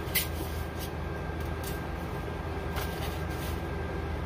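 Handling of a small boxed item and its packaging: a few short clicks and crinkles, the sharpest just after the start, over a steady low hum.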